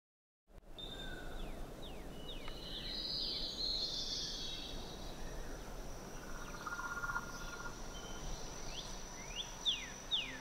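Dusk nature ambience: a steady low outdoor hiss under a thin, steady high insect trill, with birds giving short falling chirps that come thicker near the end. It starts after a moment of silence.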